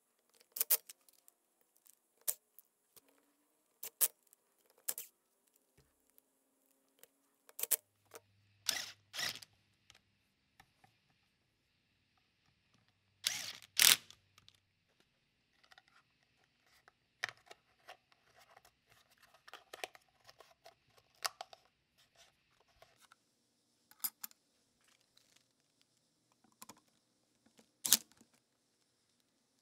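Screwdriver and small screws clicking and tapping against the metal housing of a 1930s Syntron electric hammer as it is screwed back together, in scattered irregular clicks with a few short scraping bursts.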